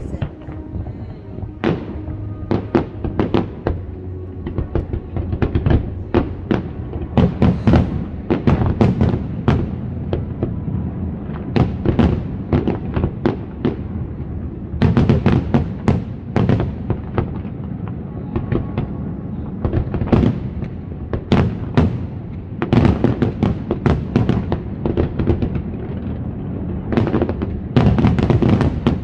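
Aerial fireworks display: shells bursting in quick succession, a continuous barrage of bangs and crackles that thickens into denser volleys several times.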